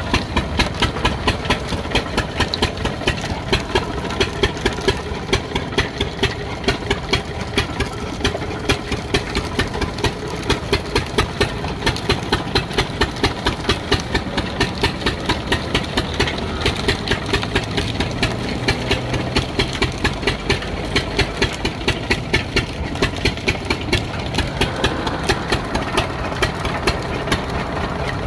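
A single-cylinder stationary diesel engine running steadily and driving a sugarcane crusher, with an even beat of about three strokes a second.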